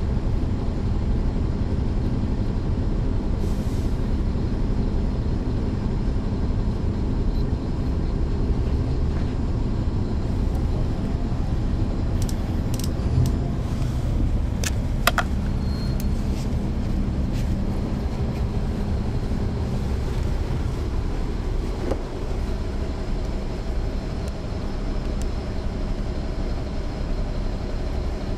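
Interior sound of a NABI 40-SFW transit bus heard from the rear seats: its Caterpillar C13 inline-six diesel engine runs steadily under a low hum. A few short sharp clicks come about halfway through, and the level eases off slightly near the end.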